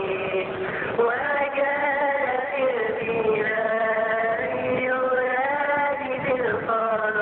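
Voices chanting a slow church hymn in unison, with long held notes that glide from one pitch to the next.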